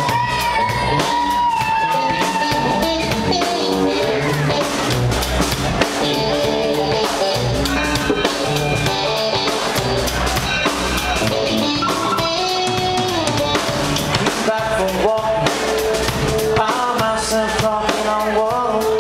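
A live rock band playing: electric guitar and drum kit, with a man singing.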